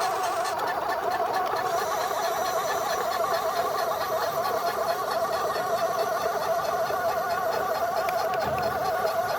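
Kubota DC-105X combine harvester running steadily, with a continuous wavering whine from its engine and drive.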